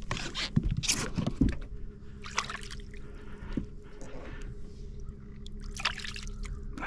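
Water splashing and sloshing at the side of a boat as a released bass swims off, with a few sharp splashes in the first second and a half and lighter sloshing after. A steady low hum runs underneath.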